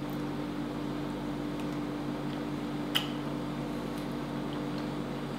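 Steady hum and hiss of a running appliance such as room ventilation, with a single sharp click about three seconds in.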